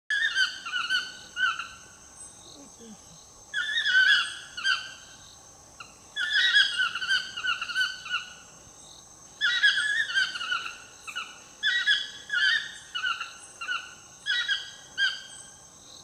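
Toucans calling: a series of short pitched calls in bouts of several notes, with pauses of a second or two between bouts, over a steady high whine in the background.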